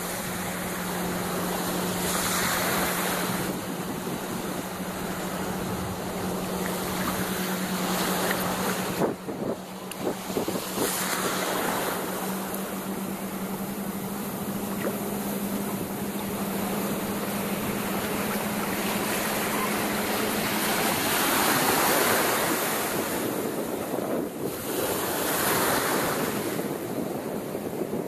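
Small waves breaking and washing on a sandy shore, the surf swelling every few seconds, with wind buffeting the microphone. A steady low hum runs underneath and stops about three-quarters of the way through.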